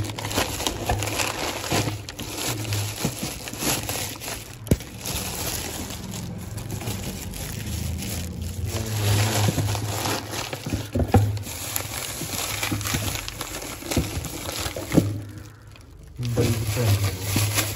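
Plastic bags rustling and crinkling as hands rummage through a cardboard box of spare parts, with a few sharp knocks as items are moved.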